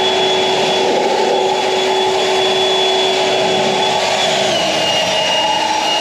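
EGO LB7650 56V cordless leaf blower running at high speed through its spread nozzle: a loud, steady rush of air over a constant fan whine. The whine drops slightly in pitch about four and a half seconds in as the speed is eased back.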